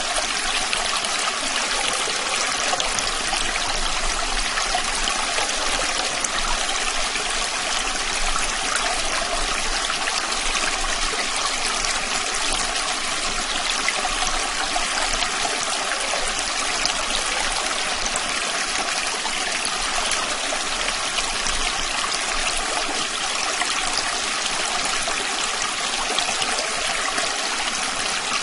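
A small stream flowing and trickling steadily, with fine babbling detail over a continuous rush of water.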